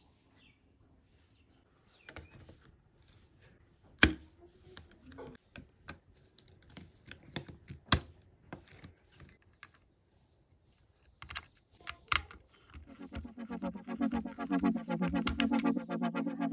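Sharp plastic clicks and taps as two 18650 lithium-ion cells are handled and pressed into a plastic battery holder, with two louder snaps about four and eight seconds in. Background music with an even pulse comes in near the end.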